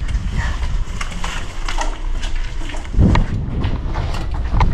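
Footsteps on a hard tunnel floor with the knocking and rattle of kit carried on the body. There are irregular sharp knocks and a couple of heavier thumps, the loudest about three seconds in.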